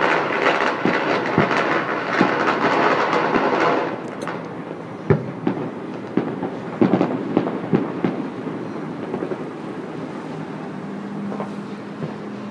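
Firecrackers going off in a dense, rapid crackle that stops abruptly about four seconds in. After that come scattered firework bangs, the sharpest about five seconds in.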